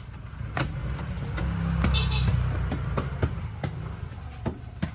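A motor vehicle passes: a low rumble swells to its loudest about two seconds in, then fades. Scattered light taps come from the rubber floor matting being pressed flat by hand.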